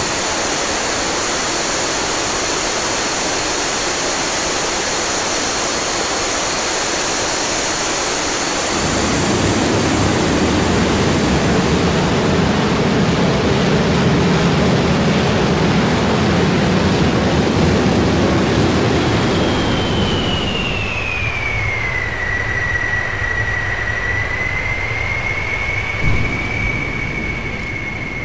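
Jet turbine engine running with a loud rushing noise and thin high whines, and a deeper rumble joins about nine seconds in. About twenty seconds in, a whine glides down in pitch and settles into a steady lower whine as the rush fades.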